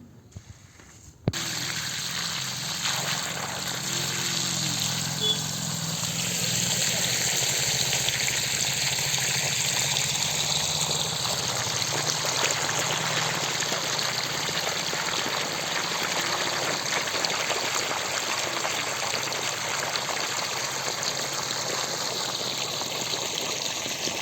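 Steady rush of flowing water that starts abruptly about a second in and keeps going without a break.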